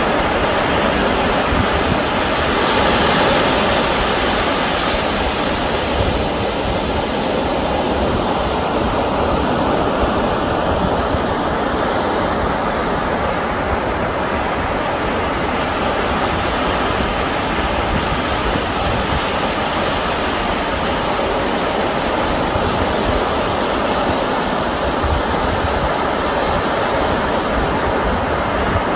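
Steady wash of sea surf breaking on the shore, swelling slightly a few seconds in, with a gusty low rumble of wind on the microphone.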